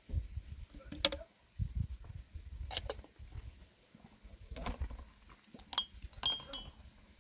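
Small glass tea glasses clinking against each other and a metal tray as they are handled, a few separate sharp clinks, the last ones near the end ringing briefly, over a low rumble.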